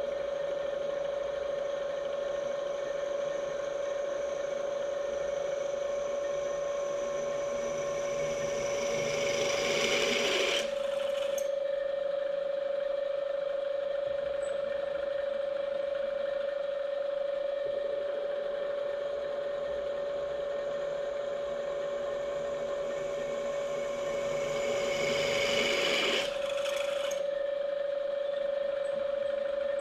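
1970s bench drill press running with a steady motor hum while its twist drill cuts two holes in a metal plate held in a vise. The cutting noise builds and then cuts off suddenly about ten seconds in and again late on, each time a hole is finished, with a light click just after.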